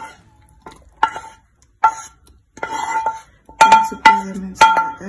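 A spoon knocking and scraping against a pan while scooping out sautéed vegetables: a run of sharp clinks that ring briefly, about one a second, coming faster and louder near the end.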